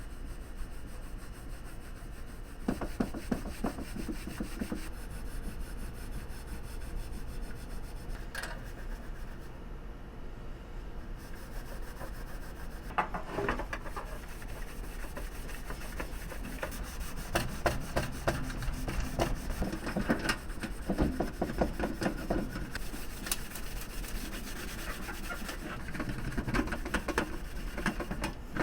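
A cloth rubbed back and forth over the painted metal of a vintage tool box in repeated hand strokes, polishing its finish.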